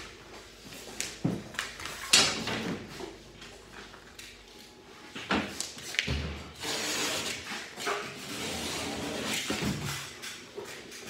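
Scattered knocks, clicks and thuds from a drywall worker handling his tools and moving about, the loudest knock about two seconds in, with a stretch of hiss from about the middle to near the end.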